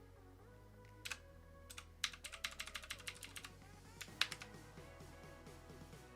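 Key presses on a mechanical keyboard with clicky Outemu Blue clone switches: a few single clicks, then a quick run of clicks about two seconds in and one more near four seconds.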